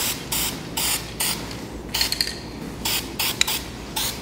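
Paint being sprayed onto an engine part in a string of short hissing bursts, about seven quick passes: a light coat laid on for adhesion.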